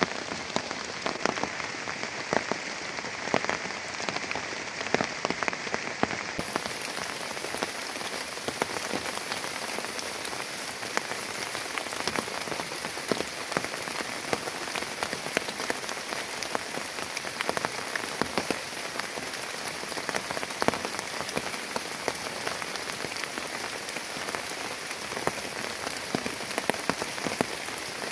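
Heavy rain falling steadily, with many sharp individual drops striking a nearby surface.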